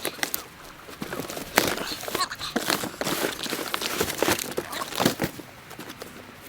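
Packaging being handled and opened: irregular crinkling and rustling with sharp knocks and tearing sounds.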